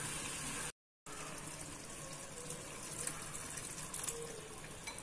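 Water poured into a pan of rajma (kidney-bean) curry, a steady pouring hiss that drops out briefly about a second in.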